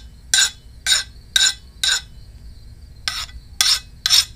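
Hand file scraped in seven short, quick strokes across the quenched steel tip of a homemade welding chipping hammer, about two strokes a second with a pause of about a second midway. The file is skating off the steel rather than biting into it, a sign the tip has hardened.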